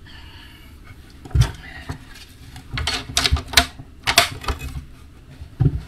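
Knocks and clicks of hands handling a timber panel fitted with power outlets: a thump about a second and a half in, a quick run of sharp clicks and taps in the middle, and another thump near the end.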